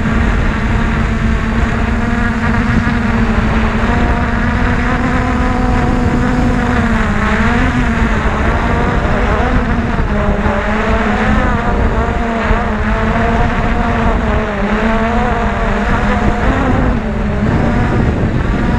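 An engine running steadily, its pitch wavering slightly up and down over a constant low rumble.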